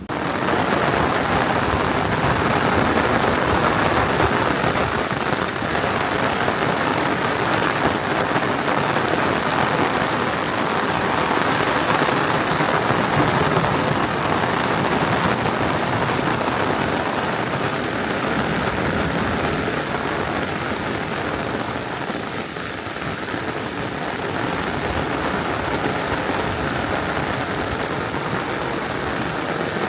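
Heavy rain falling steadily, a dense even downpour that starts suddenly at the outset.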